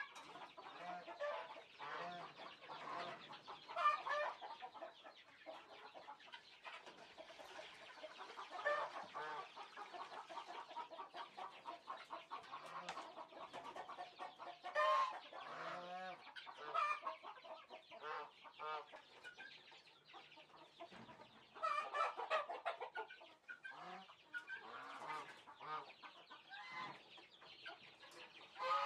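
Chickens clucking and calling over and over, with louder bunches of calls every several seconds.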